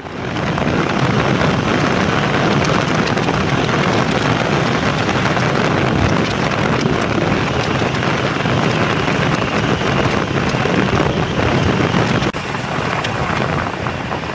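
Steady road and wind noise of a car driving on a wet road, with tyre hiss and wind buffeting the microphone. The noise drops slightly about twelve seconds in.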